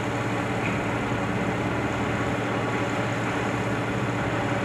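A fire engine's diesel engine running steadily at idle, with a low, even hum.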